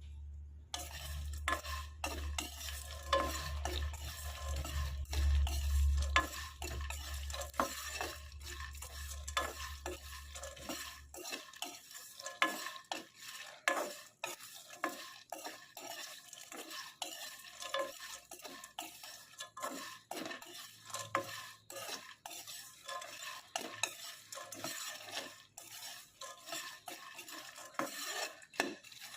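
Split kabok (wild almond) seeds dry-roasting in a pan over low heat, stirred without a break by a spatula: repeated scraping and rattling strokes of seeds against the pan. A low hum runs underneath and stops about eleven seconds in.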